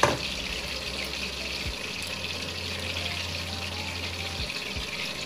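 Water running steadily from a tap into a sink, with one sharp knock right at the start.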